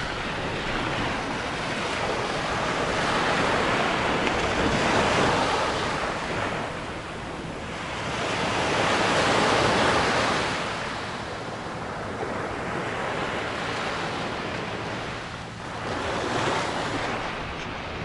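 Small ocean waves breaking and washing up onto a sandy shore. The surf swells louder three times as waves wash in, then ebbs between them.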